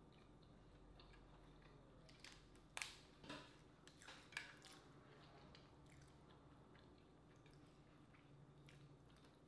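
Quiet close-up eating sounds: faint chewing, with a few brief sharp clicks and crackles of Dungeness crab shell being picked apart, bunched between about two and five seconds in.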